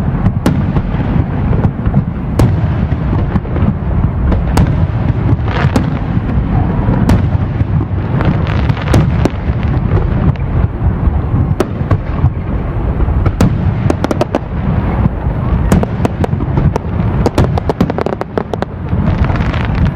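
Aerial fireworks display: a dense, continuous barrage of shell bursts booming one after another, with many sharp bangs scattered throughout.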